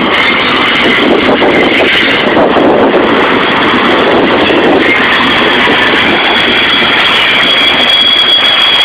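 Union Pacific double-stack container freight train rolling past, a loud steady rumble and clatter of wheels on rail, with a high steady whine coming in about halfway through.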